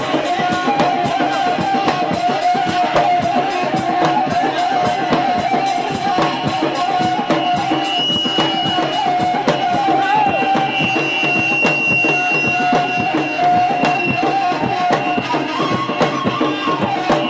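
Tunisian gasba, a long end-blown reed flute, playing an amplified, slightly wavering rboukh melody over a fast, steady drum beat.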